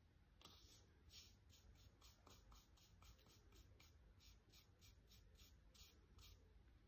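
Faint, soft scratches of a paintbrush stroking paint onto a surface, about two strokes a second and unevenly spaced, over near silence.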